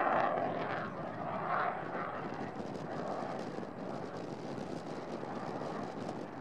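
Jet noise from a Dassault Rafale's twin M88 turbofan engines as the fighter flies overhead, loudest in the first second, then steady and a little fainter.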